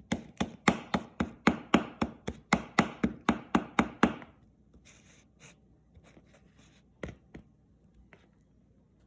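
Knife rapping and chopping at microwave-hardened mustard on a plate, a quick even run of about four sharp knocks a second for some four seconds, then two more knocks about seven seconds in.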